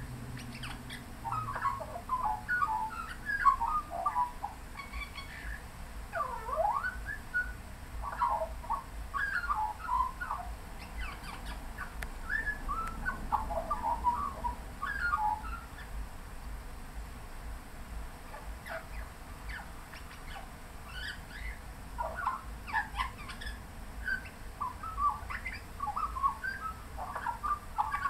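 Australian magpie singing: quick runs of warbling, fluting notes that slide up and down in pitch. The song thins out for a few seconds past the middle, then starts up again.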